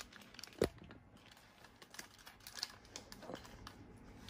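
Faint handling noise of headphones being put on: light rustling and scattered small clicks, with one sharper click about half a second in.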